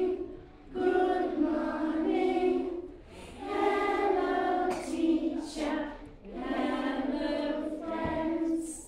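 A class of young children singing together, unaccompanied, in sustained phrases of a few seconds each with short breaks for breath.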